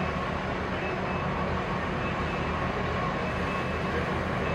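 Steady machine noise: a low rumble with an even hiss over it and a faint steady high whine.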